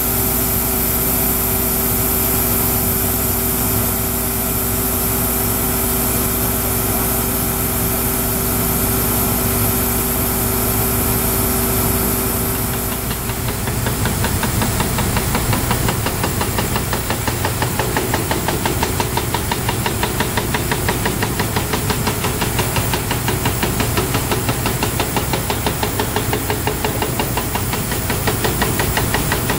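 Pneumatic pole drill (HQ PPD112L) running: at first a steady hiss of compressed air blowing through the hammer and out of the button bit over the running air compressor. About 13 seconds in, the bit is on the ground and the down-the-hole hammer starts pounding in a fast, even rhythm as it bores into the soil.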